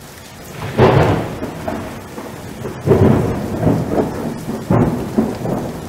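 Thunderstorm sound effect: steady rain with three rolls of thunder, the first about a second in and the last near the end. It starts abruptly.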